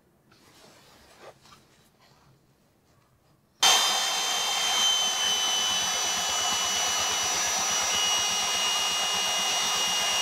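Electric belt sander running with a metal part pressed onto the moving abrasive belt, grinding it flat. A steady rasping with a high whine starts suddenly about three and a half seconds in and stops abruptly at the end.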